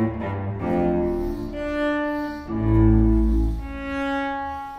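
Background music of slow, long held notes, the pitch changing every second or so, with a deep low note swelling about two and a half seconds in.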